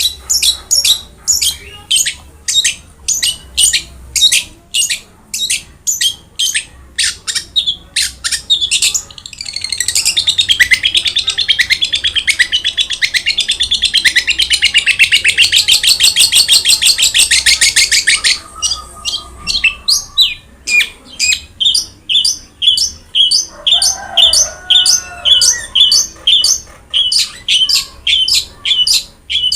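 Long-tailed shrike (cendet) singing loudly: sharp high calls repeated about two or three a second, breaking into a long, fast chattering trill in the middle, then back to the repeated calls.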